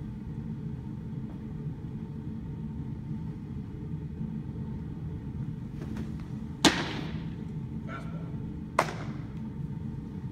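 A pitched baseball smacks into a catcher's mitt with a sharp pop, the loudest sound, and about two seconds later comes a second, slightly softer pop of a ball caught in a glove. A steady low hum runs underneath.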